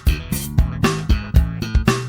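Electric bass guitar played through a DK iB-30 30-watt bass combo amp, a funky slap-and-pop line of short notes with sharp, percussive attacks, several notes a second.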